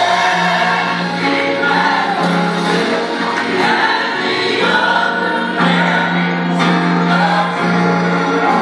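Gospel choir singing with band accompaniment.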